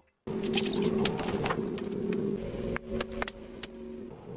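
Car engine running as the car creeps forward on asphalt, a steady low hum, with scattered small clicks and crackles under the tyre.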